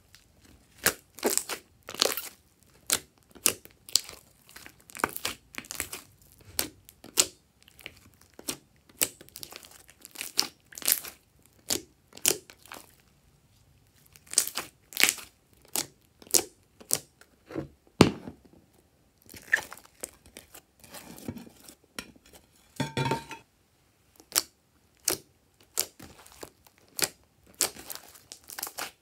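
Hands squishing, stretching and poking a large mass of glossy slime: sticky, irregular clicks and pops, a few a second, with a brief pitched squelch about two-thirds of the way through.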